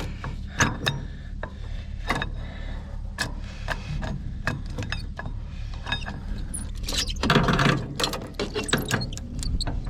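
Heavy roller chain from a combine header drive clinking and rattling as it is worked off its sprockets by hand. It makes irregular metallic clicks, with a denser clatter about seven seconds in.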